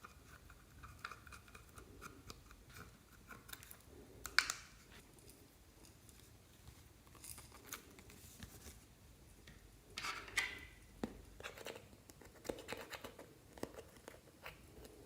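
Clear slime being worked by hand, giving faint, irregular sticky clicks and crackles, with a sharper pop about four seconds in and a cluster of louder crackles around ten seconds in.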